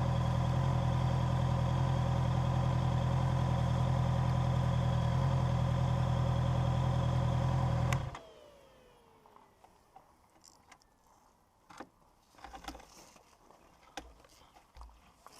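A car engine idling steadily, then switched off about eight seconds in, its hum dying away with a brief falling whine. A few faint clicks and knocks follow.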